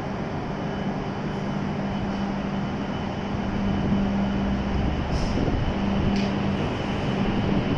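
W7 series Shinkansen trainset standing at the platform, its onboard electrical and ventilation equipment giving a steady low hum that gets a little louder about halfway through. Two short high clicks near the middle.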